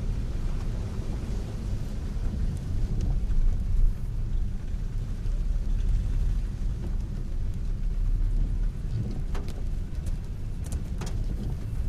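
Heavy rain with vehicles moving along a flooded street, heard as a steady hiss over a deep low rumble, with a few sharp clicks near the end.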